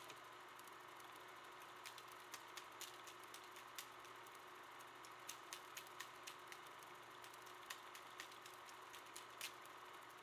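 Faint steady hum with sharp clicks scattered irregularly through it.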